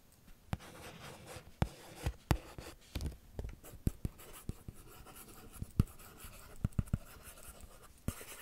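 Stylus writing on a hard plastic writing tablet close to the microphone: short scratchy strokes broken by sharp taps of the pen tip.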